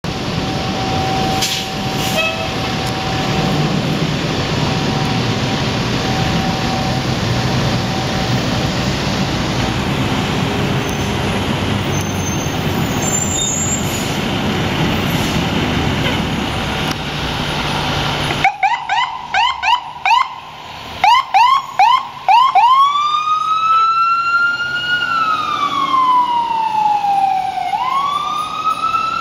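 Fire ladder truck's engine running steadily as the truck rolls out, mixed with street noise. About two-thirds of the way in its siren starts: a quick run of short rising yelps, then a long wail that climbs, slowly falls and climbs again near the end.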